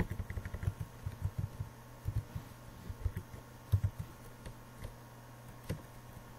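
Typing on a computer keyboard: a quick run of keystrokes in the first second and a half, then scattered single keystrokes, over a steady low hum.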